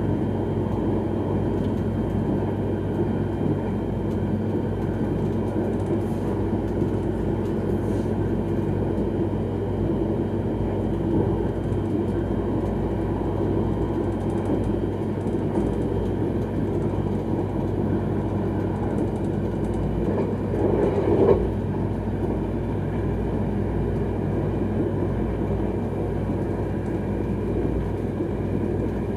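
X31 electric multiple unit running at speed, a steady rumble of wheels on rail with a constant low hum. The noise briefly swells about two-thirds of the way through.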